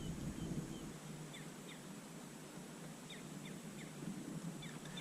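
Faint bird chirps: short, quick falling calls in small groups of two or three, repeated several times over quiet open-air background.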